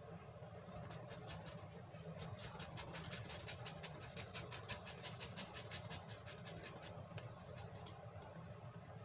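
Green papaya being shredded on a metal hand grater over an aluminium pot: quick rhythmic rasping strokes, about six a second, in a short run, then a long run, then a short run near the end. A steady low hum runs underneath.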